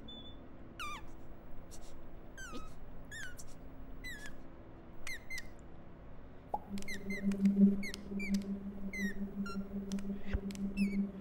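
A run of short high squeaks, each gliding down in pitch, coming about one or two a second. A low, slightly pulsing hum joins a little past halfway.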